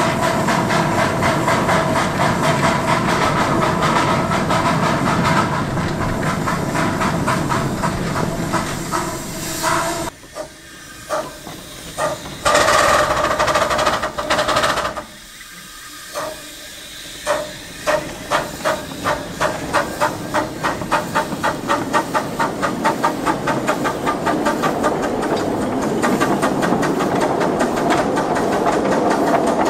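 One-foot gauge 0-4-2 tank steam locomotive working, its exhaust beats rapid with a hiss of steam, dying away about ten seconds in. After a few single puffs comes a loud hiss of steam lasting a couple of seconds. Then the exhaust chuffs start again, slow at first and steadily quickening.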